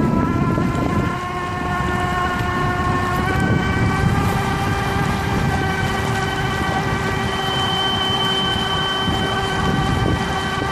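Golden Motor 48 V 5 kW brushless electric outboard running under way with a steady high whine made of several pitched tones, over the rush of water and wind buffeting the microphone.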